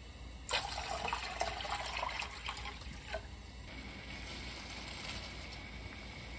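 Water in a pan on a gas stove: a loud spell of splashing, bubbling water for about three seconds, then a steadier bubbling of water at a rolling boil as dry somyeon noodles go in.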